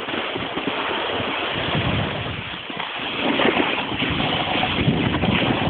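Snowboard sliding and scraping over rough, chopped snow, with wind rushing over the camera's microphone; the scraping grows somewhat louder about halfway through.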